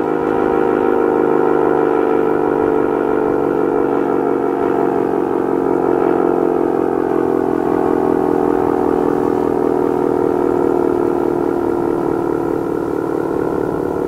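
ACA Cyclone 120 mechanical outdoor warning siren sounding a loud, steady tone, its pitch drifting slowly lower.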